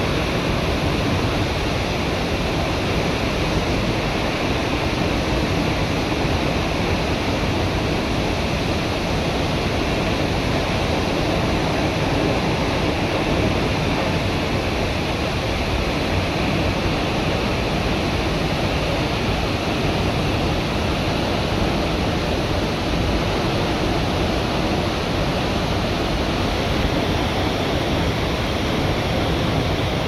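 Tall waterfall plunging down a rock face into a rock pool: a steady, heavy rush of falling water with no let-up.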